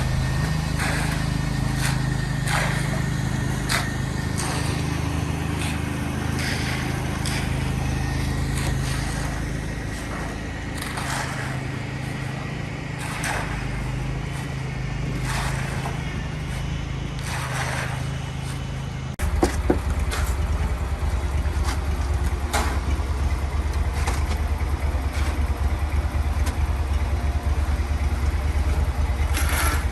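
Shovels scraping and chopping through wet concrete in repeated short strokes, over a steady engine drone. The engine's note drops abruptly about two-thirds of the way through.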